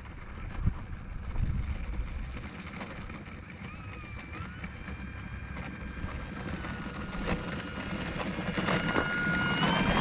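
Brushless electric motor and propeller of an E-flite Air Tractor 1.5 m RC plane whining as it taxis along the runway, the pitch stepping up and down with the throttle and growing louder as it nears. Wind buffets the microphone in the first couple of seconds.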